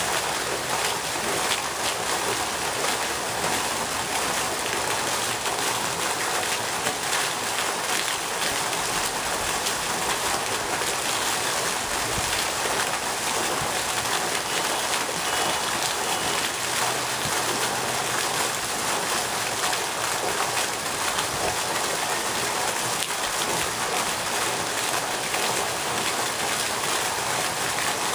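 Pond fountain jet splashing steadily back down onto the water: a constant hiss of falling water.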